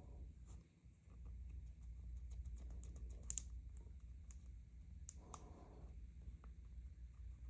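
Small metal clicks and taps of lock parts and tools being handled while a DOM ix dimple lock is taken apart, with two sharper clicks about three seconds in, over a steady low hum.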